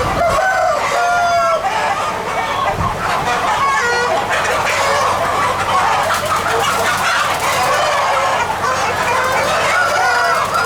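A large flock of chickens clucking and calling over one another continuously, with roosters crowing among them.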